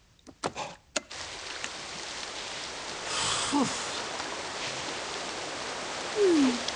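A few quick clicks, then a steady water-like hiss begins about a second in. A short falling vocal sound from a cartoon character comes about halfway, and a louder one near the end.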